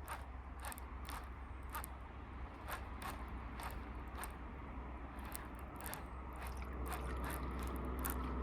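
Baitcasting reel being wound during a big-bait retrieve: irregular light clicks and scraping from the reel and rod handling, over a steady low rumble.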